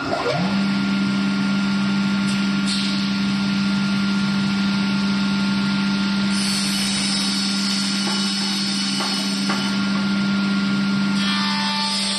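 XY4016 tenon cutting machine running at speed, its cutter motor and dust extractor giving a steady hum with a busy high hiss, after a rising spin-up in the first half second. About eleven seconds in the sound changes and a higher tone joins as the carriage feeds the stack of boards toward the cutter.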